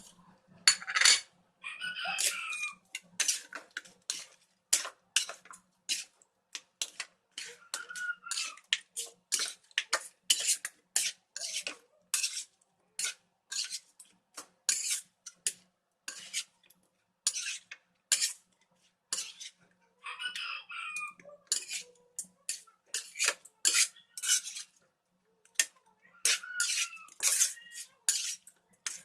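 Kitchen utensils clinking and knocking against dishes and pans in an irregular run of sharp taps, about two or three a second, with a few short scrapes.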